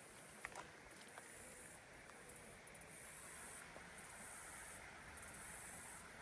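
Faint, high-pitched insect buzzing that comes and goes in stretches of about a second, over a low outdoor background.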